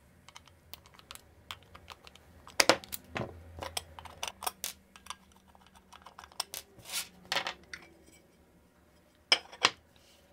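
Small metallic clicks, taps and scrapes as a screwdriver backs out the bottom-plate screws of a die-cast aluminium Hammond 1590BB pedal enclosure, the screws are set down on the table and the plate is taken off. The sharpest knocks come about two and a half seconds in and again near the end.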